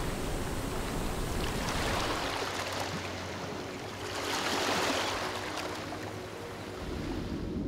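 Ocean water ambience: an even wash of waves and lapping water, swelling twice, about two seconds in and again around four to five seconds in.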